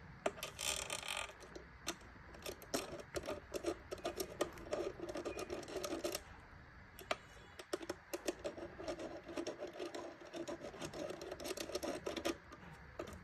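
A screw being driven into the smart lock's fittings with a hand screwdriver: two long runs of rapid clicking and scraping, the second starting about eight seconds in.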